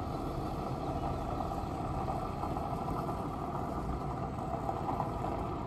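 Van engine running steadily as the van drives away.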